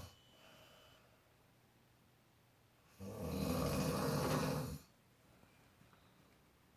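A sleeping person snoring: the tail of one snore right at the start, then one loud rattling snore about three seconds in lasting nearly two seconds, with quiet pauses between.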